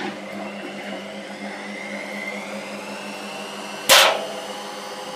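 Candy GO DF800 washing machine spinning with its door open, the motor whine rising in pitch as the drum speeds up over a steady hum. A loud short crash about four seconds in.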